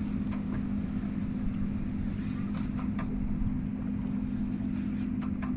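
A boat's motor running at a steady low hum, with a few faint clicks over it.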